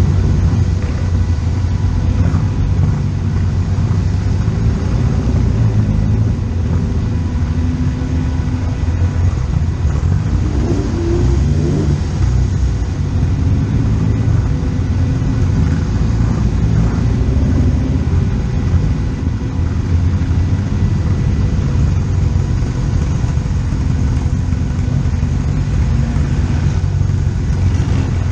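Classic racing car engine running with a steady low rumble and a slight rise and fall in pitch about eleven seconds in.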